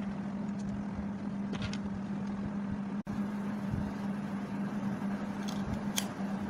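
Steady low hum over background noise, with a few faint clicks.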